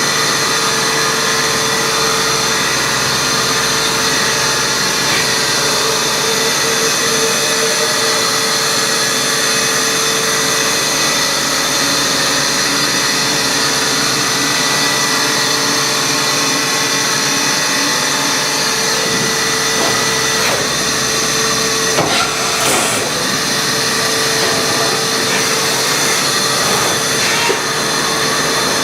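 Matsuura MAM72-63V vertical 5-axis CNC machining center running under power: a steady mechanical hum and hiss with a constant whine, and a few brief knocks about two-thirds of the way through and near the end.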